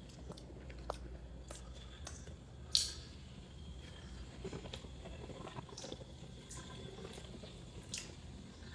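Soft chewing and mouth sounds of a person eating sel roti, with scattered small clicks and one sharper click about three seconds in.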